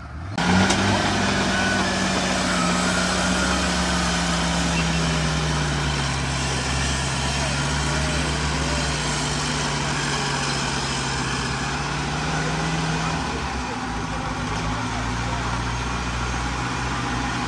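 Off-road 4x4 engine running steadily under a low rumble, its note sinking slowly lower and dropping away about thirteen seconds in.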